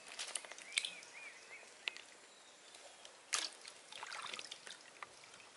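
Water sloshing and splashing as raw chicken pieces are rubbed and rinsed by hand in an aluminium pot, with a few sharper splashes about a second in and again past the middle.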